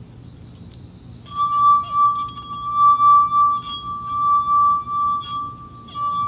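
Glass cup sung by rubbing around its rim: one steady ringing tone that starts about a second in and swells and fades in waves without dying away, with a few light clinks of glass on top.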